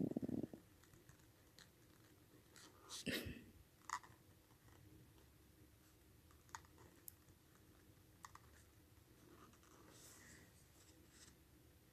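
Faint scratching of a pen writing on paper, with a few scattered soft clicks and taps; the loudest tap comes about three seconds in.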